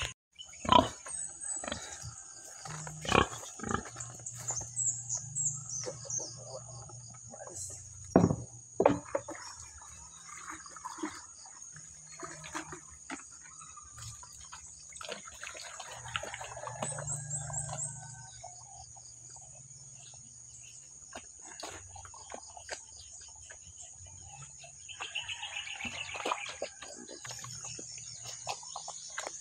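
A sow feeding at a feed tray, its eating noises and grunts coming and going, over a steady high chirring of insects. A few sharp knocks come in the first nine seconds.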